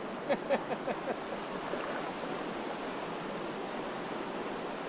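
Steady rush of a shallow river's current flowing past, with a few short bursts of laughter in the first second.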